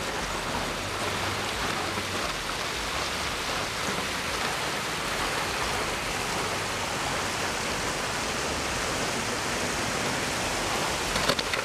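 A steady, even hiss, with a short click near the end.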